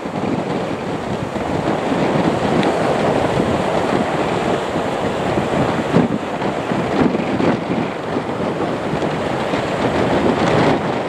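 Lockheed Martin C-130J Hercules turboprop engines running as the aircraft taxis on two engines, a loud, steady rumble without breaks.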